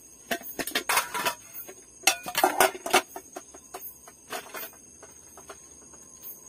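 Aluminium cooking pot, lid and metal cup clattering and clinking as they are handled and set down: two busy runs of metal knocks with a brief ring in the first three seconds, then a few lighter knocks.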